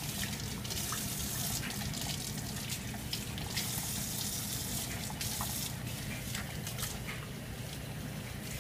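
Tap water running steadily into a utility sink, with small splashes as a wet dog is washed in it.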